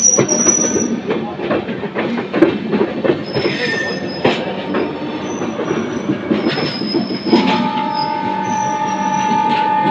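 Wheels of a moving passenger train clattering over the points and diamond crossings of a multi-track junction, with quick irregular knocks and a high metallic wheel squeal. A long steady tone joins in about seven seconds in.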